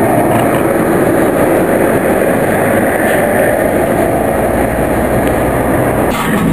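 Yellow Lisbon electric tram running along its rails, a steady running noise heard from on board.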